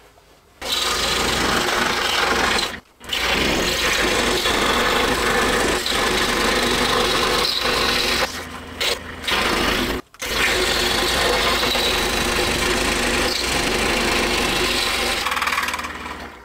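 Excalibur scroll saw running with a number 7 reverse-tooth blade, cutting through a thick block of wood stood on end, a tougher cut. The cutting stops briefly about three seconds in and again about ten seconds in, and dies away near the end.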